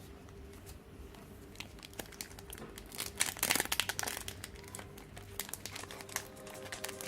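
Plastic-foil Pokémon card booster pack wrapper crinkling as it is handled and opened, a dense run of crackles loudest about three to four seconds in.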